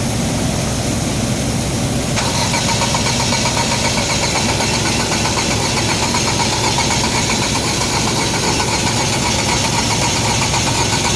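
2014 Ford EcoSport engine starting and running with a misfire. About two seconds in the sound turns brighter, with a steady, rapid pulse.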